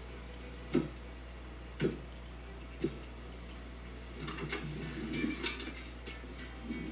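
Three sharp knocks about a second apart, then a burst of clattering and clinking as things are pushed around in a wooden drawer.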